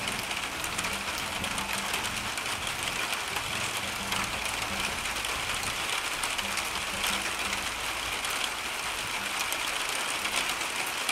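Steady rain, an even hiss with a dense patter of small drops on the deck and leaves.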